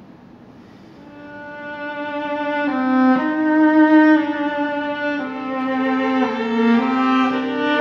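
Violin and cello, with a clarinet, playing long held notes of a contemporary chamber piece. They swell up from near quiet about a second in and step to new pitches together every second or so.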